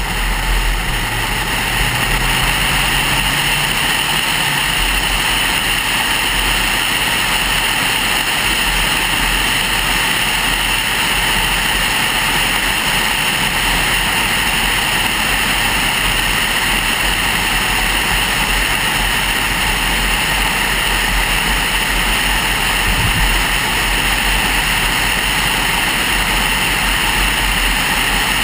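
Steady road noise of a car driving at speed, heard from inside: engine, tyres and wind together in an even rush.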